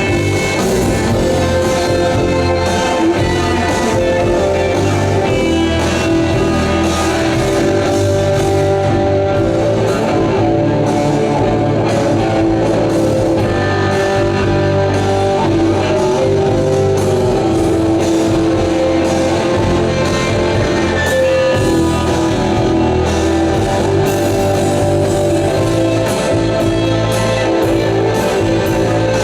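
Live rock band playing an instrumental passage: electric guitars holding long, sustained notes over bass and drums, with no singing.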